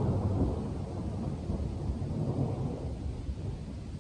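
Rolling thunder: a long low rumble that is loudest at the start and slowly fades.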